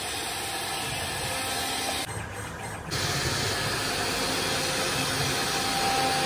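Chencan M1325AG CNC router running, its spindle cutting grooves into a wooden panel with a steady machine whine and hiss. The sound dips for about a second, about two seconds in, then carries on.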